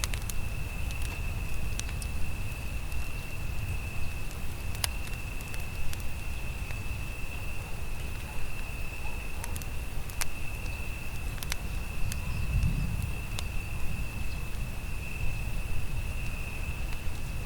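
Wood campfire crackling, with scattered sharp pops and a low rumble, under a steady high-pitched insect trill.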